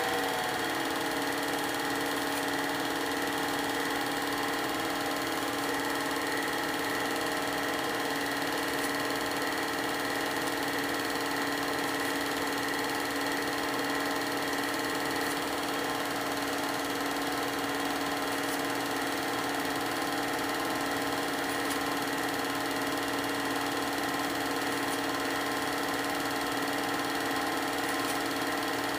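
Film projector running steadily: a constant motor whir with a fixed-pitch hum and hiss, no other sounds.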